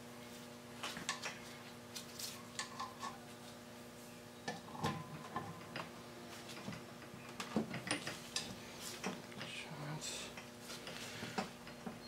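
Faint metal clicks and clinks of a C-clamp valve spring compressor being fitted and worked against a valve spring on a Chrysler 440 cast-iron 906 cylinder head, over a faint steady hum.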